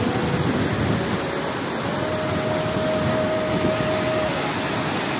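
Brown floodwater rushing steadily through the openings of a concrete weir and churning below it.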